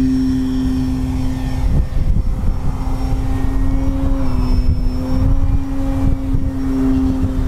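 Electric motor and propeller of an FMS Pitts 1400 mm RC biplane running steadily as it takes off from grass and climbs, a steady whine that shifts slightly in pitch. From about two seconds in, wind rumbles on the microphone.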